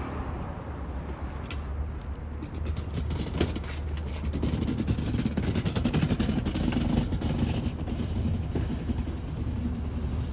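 Street traffic: a car going by, louder in the middle, over a steady low rumble.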